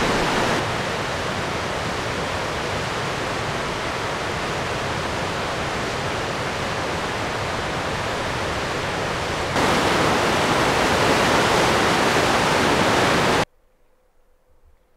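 River rapids rushing steadily. The level steps down slightly early and back up about two-thirds of the way through, then cuts off abruptly near the end to near silence.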